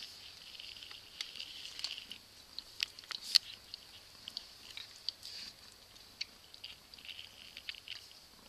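Kittens' paws and claws tapping and scratching on a wooden floor as they play-fight: irregular light clicks and patters, the sharpest a little over three seconds in, over a faint steady high hiss.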